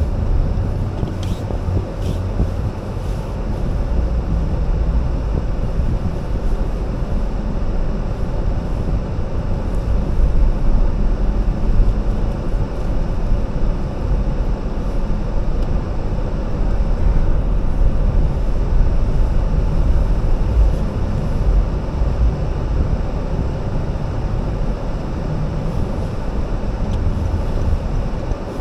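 Steady low rumble of a car driving, tyre and engine noise.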